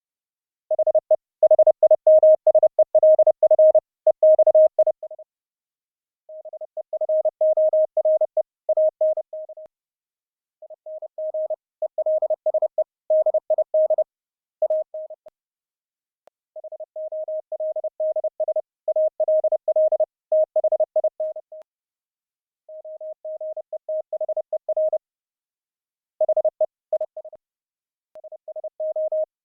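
Morse code (CW) tones at one steady pitch, keyed in quick dots and dashes, come in runs of a few seconds with short pauses between them. The first run is the loudest. The audio is relayed over the internet through a Raspberry Pi gstreamer audio server.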